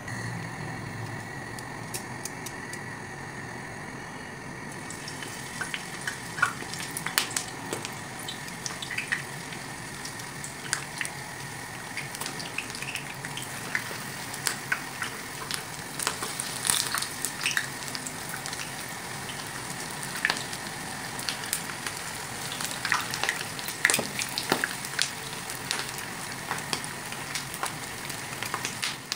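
Stuffed eggplant pieces shallow-frying in hot oil in a frying pan: a steady sizzle with frequent sharp crackles and pops, which thicken from about five seconds in.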